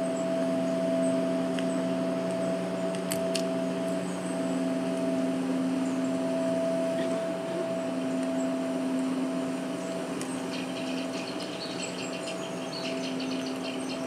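Sound-art piece built from field recordings, played over loudspeakers: a steady drone of several held tones, with a few sharp clicks about three seconds in and a rapid high ticking pattern from about ten seconds in.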